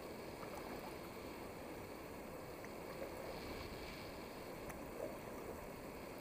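Water sounds of kayaking on a still cave river: a steady low hiss of water, with two faint knocks about three and five seconds in.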